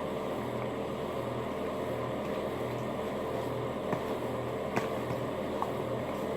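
Steady mechanical hum with a low throb that pulses about twice a second, and a few faint clicks near the end.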